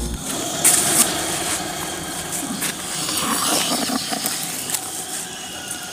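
Rustling and scuffling of feet and bodies on dry leaves and ground litter, with a couple of sharp knocks about a second in.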